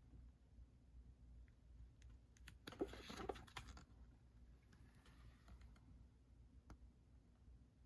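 Near silence: room tone, with a brief faint rustle about three seconds in and a few light clicks.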